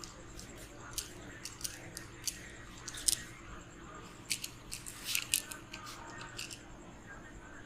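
Head massage: hands working on the head and hair, giving irregular sharp clicks and taps, the loudest about three seconds in and a quick cluster about two seconds later.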